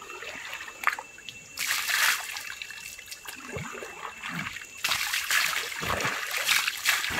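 Water splashing and trickling in a shallow stream. It comes in a short burst about one and a half seconds in and picks up again for good about five seconds in.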